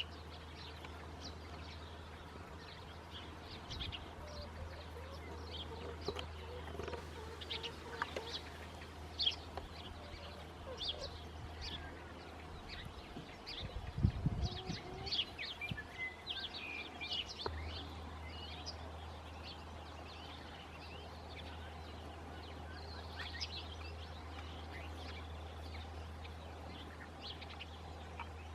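Small birds chirping and calling in many short, scattered notes, over a steady low hum, with a brief low rumble about halfway through.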